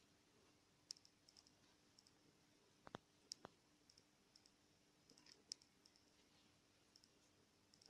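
Near silence: room tone with a faint steady hum and scattered small, irregular clicks, two of them a little louder about three seconds in.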